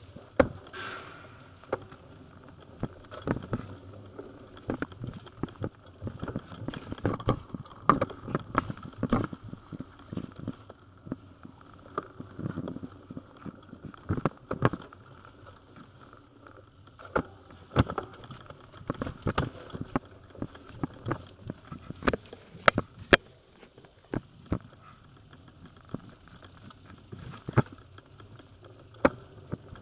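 Bicycle and its loaded bags rattling and clunking over the uneven towpath inside a long canal tunnel, a steady run of irregular sharp knocks and clicks with a faint hum beneath.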